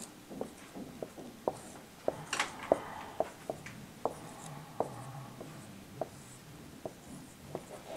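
Dry-erase marker writing on a whiteboard: the tip taps and scratches in short, irregular strokes as a formula is written out.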